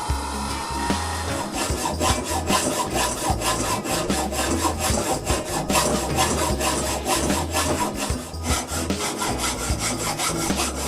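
Hand tool working wood with rhythmic back-and-forth strokes, about two to three a second, starting about a second and a half in.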